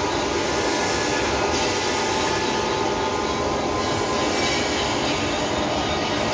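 A green bench-mounted metalworking machine running steadily, its rotating head working a rod that is held in it with a wrench. The noise is a continuous mechanical clatter and hum with no pauses.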